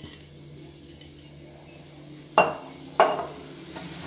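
Two sharp clinks about half a second apart, each with a short ring, as the emptied glass bowl knocks against a hard surface.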